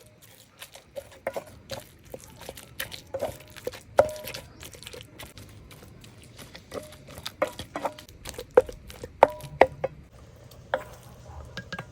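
Irregular clinks and knocks of kitchen utensils against dishes, some with a short ringing tone, sharpest around the fourth and ninth seconds.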